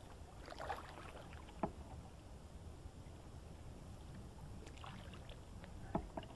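Canoe paddling on calm water: the paddle splashes and drips in short bursts, with a few sharp knocks of the paddle against the aluminum canoe, over a low steady rumble.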